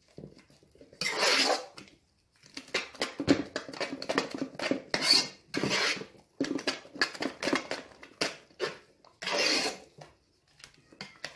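Grated cocoyam paste being mixed with salt in a bowl: quick clinks and scrapes against the bowl, with a few longer scraping strokes and short pauses between.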